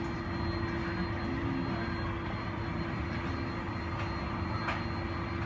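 Airbus A330-300's engines at taxi idle, a steady low rumble with a constant hum, heard through the terminal window.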